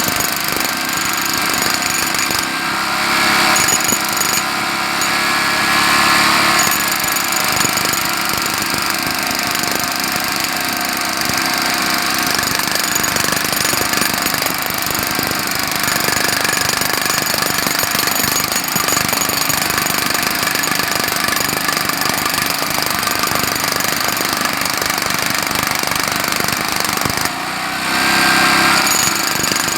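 Jackhammer hammering continuously in rapid strokes, with an engine running under it. It gets louder in short spells a few seconds in and again near the end.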